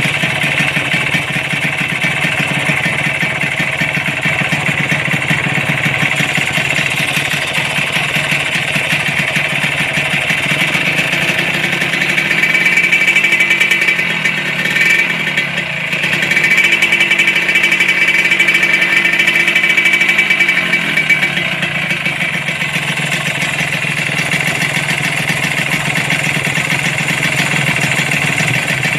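Kawasaki Ninja R two-stroke motorcycle engine running with a loud rattle, the noise of a worn-out ('jebol') engine; it gets a little louder twice in the middle, with a short dip between.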